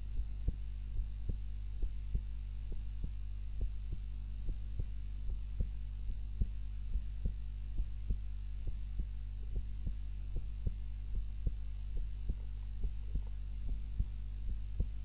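A sleeping woman's heart beating steadily and evenly, each beat a close double thump (lub-dub), over a steady low hum.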